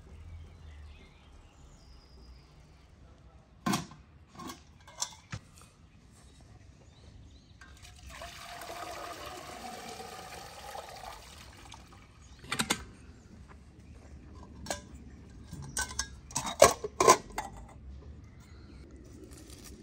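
Water poured from an aluminium can into a samovar for about four seconds, a steady splashing pour. Sharp metal clanks and knocks come before and after it, the loudest a quick cluster near the end as the samovar's chimney pipe is fitted on.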